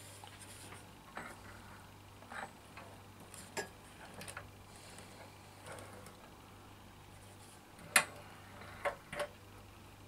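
Scattered light knocks and clicks from a mini bike being rocked on its wooden lean rig with tie-wrapped shock units, with one sharper knock about eight seconds in and two smaller ones just after.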